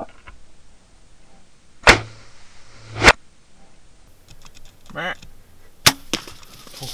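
Sharp cracks of a hunting bow being shot: two loud snaps about a second apart, then a short voice-like sound and another sharp crack near the end.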